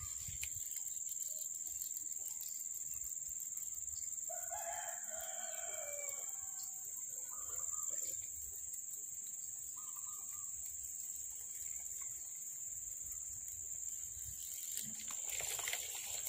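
A rooster crowing once, about four seconds in, a single drawn-out crow of about two seconds that drops in pitch at the end. A steady high-pitched whine runs underneath.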